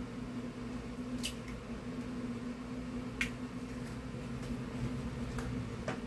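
An egg being broken open by hand and dropped into a bowl of flour: a few faint clicks of shell, over a steady low hum.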